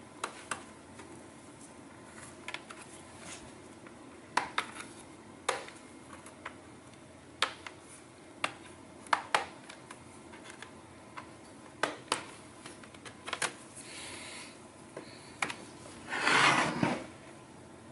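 Plastic pry tool working along the seam of a laptop's plastic case: scattered sharp clicks and snaps, roughly one a second, with a louder scraping rustle lasting about a second near the end as the laptop is handled.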